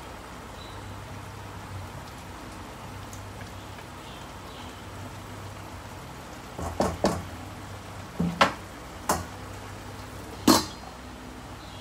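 Food sizzling steadily in a wok, with several sharp knocks of the spatula against the wok as it is stirred. Near the end comes one loud ringing clank as a steel lid is set on the wok.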